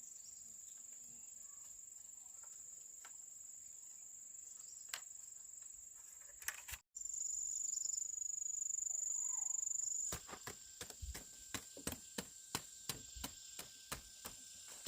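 Steady, high-pitched chirring of crickets or other insects. About 7 s in it breaks off sharply, then returns louder. From about 10 s a run of sharp knocks or taps starts, roughly two or three a second.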